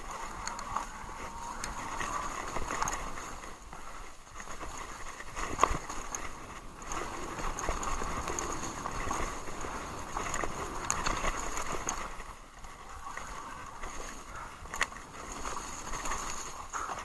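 Haibike SDURO e-mountain bike riding fast downhill on a dirt trail strewn with dry leaves: steady tyre noise and rattling from the bike, with sharp knocks over bumps, the loudest about a third of the way through.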